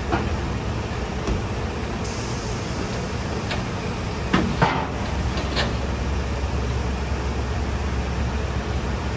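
M1 Abrams tanks' gas-turbine engines idling as a steady low rumble, with a few sharp knocks about four to five seconds in.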